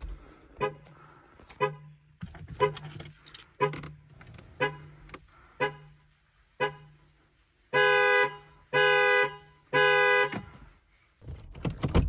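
GM car's anti-theft alarm sounding through the horn: short toots about once a second, then three longer, louder horn blasts about a second apart near the end, heard from inside the car.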